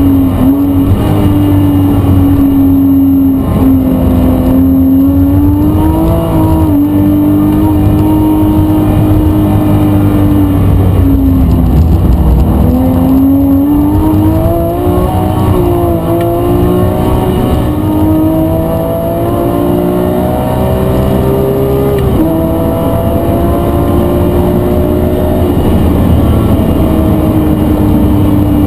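Porsche 911 GT3 flat-six engine held at high revs while drifting, its pitch rising and falling repeatedly with the throttle, with a sudden drop in revs about three-quarters of the way through.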